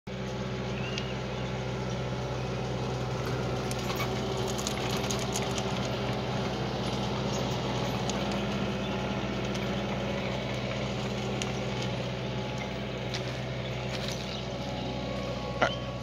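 Compact track loader (skid steer) engine running steadily at a constant speed, with scattered light clicks and a brief sharp knock near the end.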